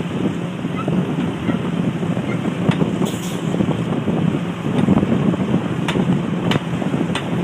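Well-service rig's engine running steadily with a low rumble, wind buffeting the microphone, and a few sharp knocks from the rig in the second half.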